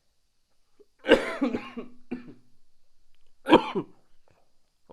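A man who is unwell coughing: a harsh cough about a second in with a short follow-up burst, then a second cough about two and a half seconds later.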